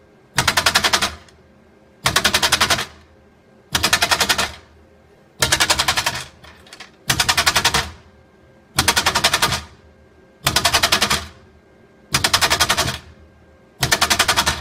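Flexible parts feeder's vibrating tray shaking loose metal zipper sliders: short bursts of fast rattling, each under a second, repeating about every 1.7 seconds, nine times. Each burst is one shake cycle that scatters and turns the parts over, with a low hum between bursts.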